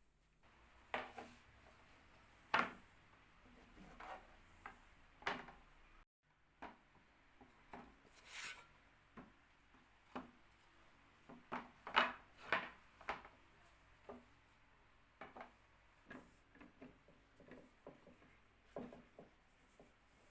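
Irregular knocks, taps and clicks of wooden cabinet parts being handled and worked, a few louder ones among many light ones, with a short hiss about eight seconds in.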